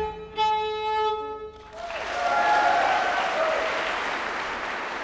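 A solo fiddle, an ordinary violin, finishing a Norwegian folk tune and ending on a held note about a second and a half in. Audience applause follows, swelling and then slowly fading.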